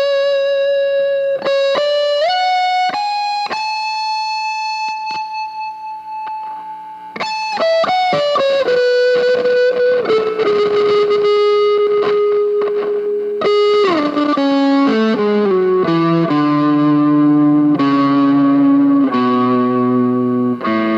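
Fernandes TEJ-70 electric guitar playing a single-note lead line: slides up into long held notes, a quieter stretch before the middle, then a run of falling notes ending in lower notes played two or more at once.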